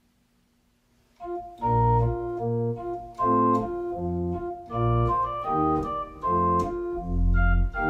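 Organ playing a series of held chords over deep bass notes, starting about a second in, the chords changing every half second to a second.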